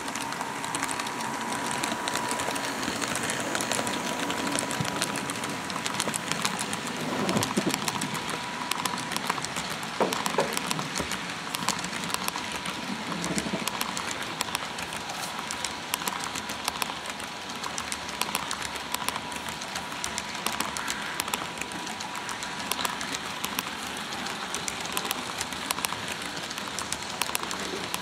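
An HO scale model freight train rolling past, its cars' wheels making a dense, rapid clatter of clicks on the track, with a thin steady whine.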